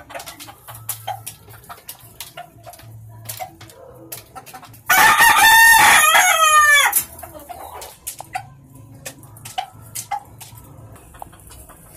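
A gamecock rooster crows once, loud and close, for about two seconds starting about five seconds in, its call ending in a falling note. Around it there is low clucking and scattered small clicks.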